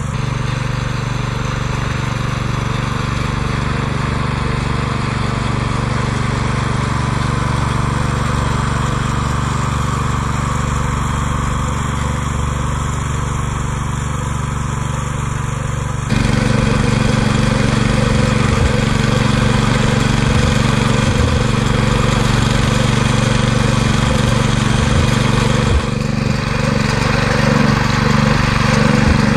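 Petrol engine of a walk-behind tractor running steadily while it pulls a mouldboard plough through soft soil. About 16 seconds in, the sound jumps louder and closer, heard from right on the machine.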